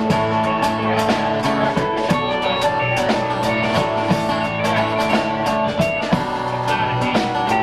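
Live band music: electric and acoustic guitars playing over a steady drum beat with cymbal hits.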